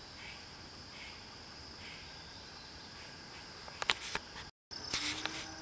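Steady, high-pitched chorus of crickets and other insects in the woods, with a few sharp clicks a little before the end and a brief dropout where the recording cuts.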